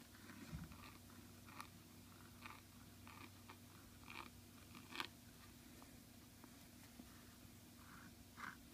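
Flexible Brause Rose steel nib scratching faintly across paper in short, separate pen strokes as script is written, the sharpest stroke about five seconds in. A faint steady low hum runs underneath.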